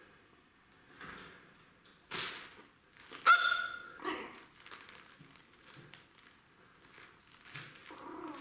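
Cellophane bag crinkling and rustling in bursts as a kitten plays in it. About three seconds in, a puppy gives one short, loud yap.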